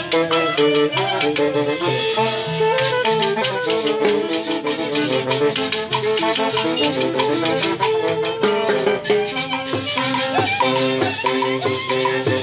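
A live Andean orquesta típica playing: saxophones and clarinet carry the melody over a harp, with metal-shelled drums, a cymbal and a rattling metal hand percussion keeping a quick, steady beat. The percussion drops out briefly about two seconds in, then comes back.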